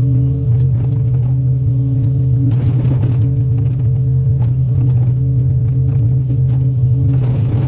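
Excavator's diesel engine running steadily under load, with scattered clicks and two louder rushes of noise, about two and a half seconds in and near the end.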